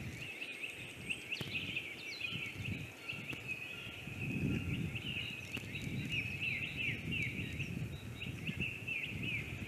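Small forest birds chirping and singing, a dense run of short falling notes that goes on without a break, over a low, uneven rustling.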